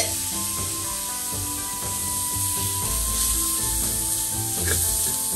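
Stir-fry sizzling steadily in a stainless steel wok with minced pork, mushrooms, black fungus and shredded dried squid. A metal spatula scrapes and tosses the food a few times near the end.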